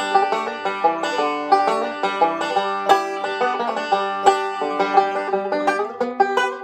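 A resonator banjo played solo as a tune: a fast, even stream of picked notes with a bright, ringing tone.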